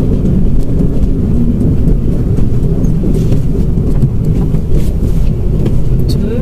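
Steady engine and road rumble of a Mitsubishi Mirage under way, heard from inside the cabin.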